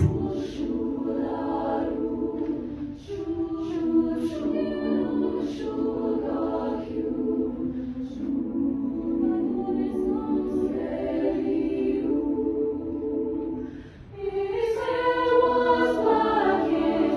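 Large choir singing sustained chords in rehearsal. About fourteen seconds in there is a brief break, and the next phrase comes in louder.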